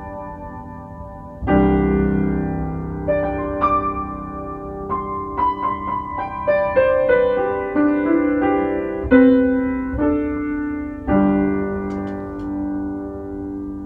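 Piano playing slow instrumental music: a full chord struck about a second and a half in, a melody of single notes over held harmony, then another full chord near the end.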